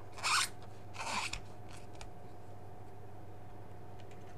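A thumb rubbing double-sided tape off a black plastic monitor frame: two short squeaky rubbing strokes in the first second and a half, the first the loudest, then a fainter one. After that only a steady hum.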